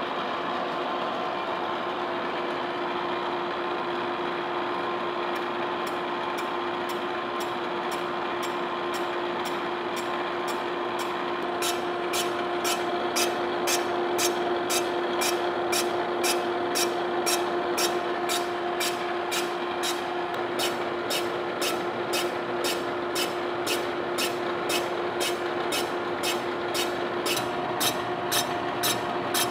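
Horizontal boring mill running a fly cutter, with a steady gear and motor hum. Partway through, a sharp tick begins about twice a second as the single cutter strikes the cast iron table on each turn, taking a final facing pass.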